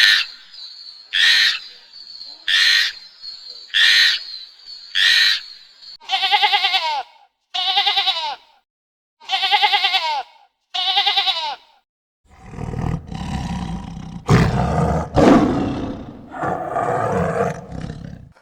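A run of animal calls: five short sharp cries, then four longer wavering pitched calls, then a long, deep, rough roar for the last six seconds or so.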